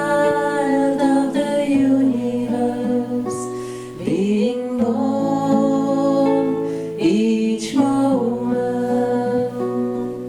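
A song: a voice singing slow, long-held notes over strummed acoustic guitar, with guitar strums about three and eight seconds in.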